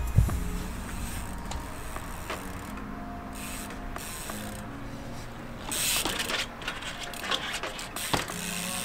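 Trial bike's freewheel hub clicking as the rider coasts and ratchets the pedals, with tyre scuffs on concrete and a sharp bang a little past eight seconds as the bike lands or strikes.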